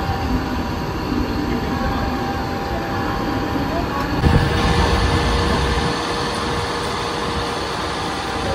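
Mumbai suburban electric train running, a steady rumble that grows a little louder about halfway through.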